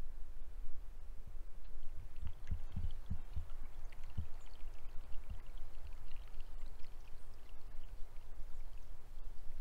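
Outdoor ambience of low wind rumble on the microphone, with a few dull thumps about two to four seconds in.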